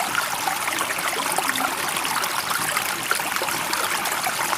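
Running water trickling steadily, an even rush with no rise and fall of waves.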